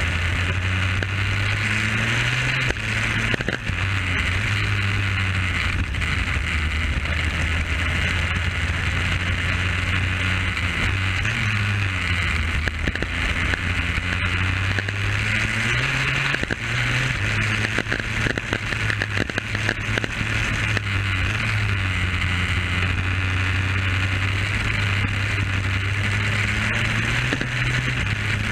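Onboard sound of a superkart's two-stroke engine being run in at speed, its note climbing and dropping several times as the kart accelerates and slows through the corners, with wind rushing past the camera.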